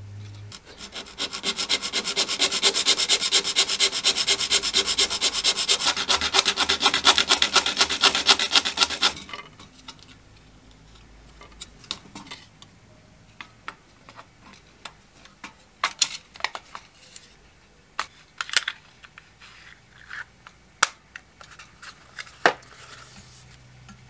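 A fast, even rubbing or scraping that goes on for about nine seconds, then stops. It is followed by scattered light clicks and taps as the small plastic and metal parts of a fly-swatter racket handle are handled.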